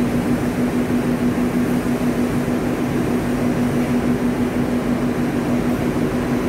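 Cotton-mill blowroom machinery and fans running: a steady mechanical drone with a constant low hum.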